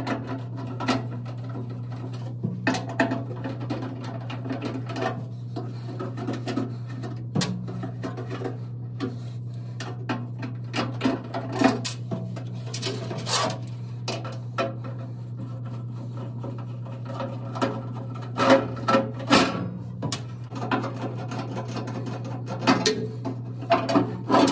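Phillips screwdriver backing out the screws of a laser cutter's exhaust fan mounting plate: scattered metallic clicks, scrapes and knocks of driver and screws against the sheet-metal cabinet, with screws set down on its floor. A steady low hum runs underneath.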